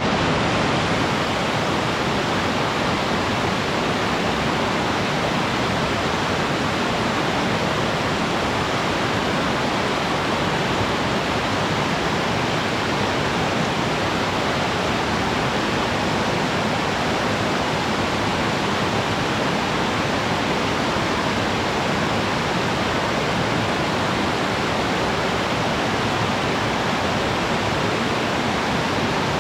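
Waterfall pouring steadily: a dense, unbroken rush of falling water, even in level throughout.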